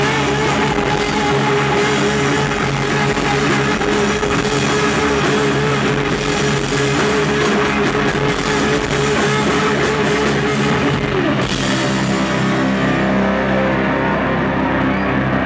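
Live noise-rock band playing loud, distorted electric guitars over drums. About eleven seconds in the drums stop and the guitars ring on in a sustained drone.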